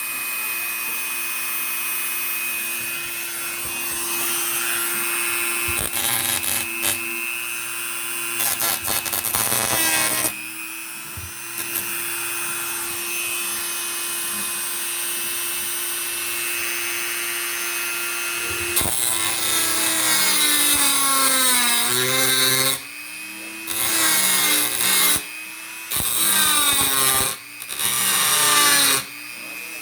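A handheld electric power tool grinding, its motor pitch sagging under load and recovering, then switched on and off in several short bursts near the end. It is grinding down sharp edges left after the door hinge screws were replaced.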